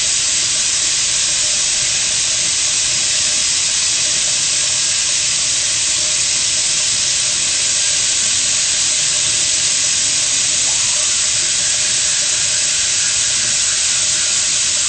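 A steady, loud hiss.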